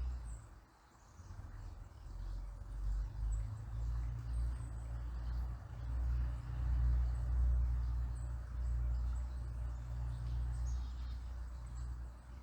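A river flowing gently, under a low rumble that swells and fades and drops away briefly about a second in. Faint, scattered high bird chirps sound over it.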